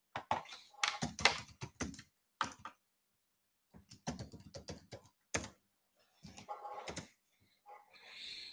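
Computer keyboard being typed on, in several short runs of key clicks separated by brief pauses.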